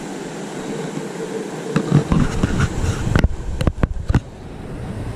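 Steady rush of river water flowing over rocks. Between about two and four seconds in, a cluster of irregular knocks and sharp clicks rises over it.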